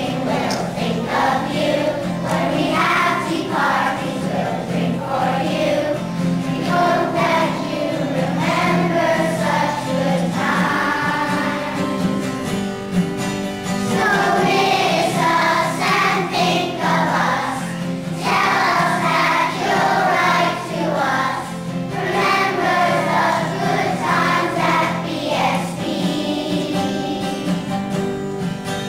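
Children's choir singing a song together, accompanied by an acoustic guitar.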